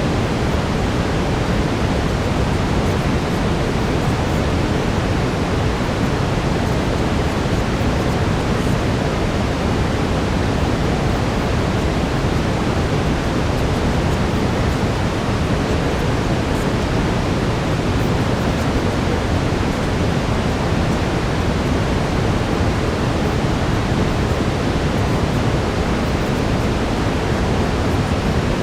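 Steady brown noise: a constant, even rushing hiss weighted toward the low end, like a distant waterfall, with no changes or events.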